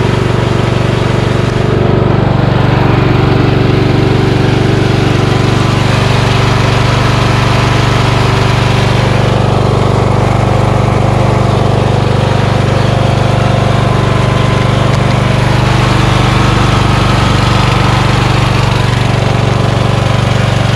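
MTD Yard-Man lawn tractor's 15.5 hp Briggs & Stratton engine running steadily at a constant speed, running well.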